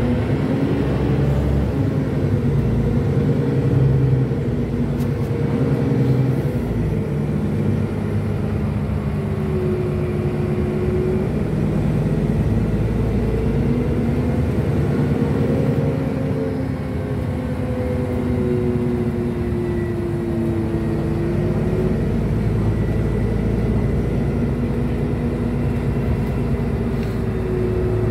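Inside a NefAZ 5299.40 city bus on the move: engine and drivetrain running under a steady low rumble of road noise, with a whine that rises and falls in pitch several times as the bus speeds up and slows.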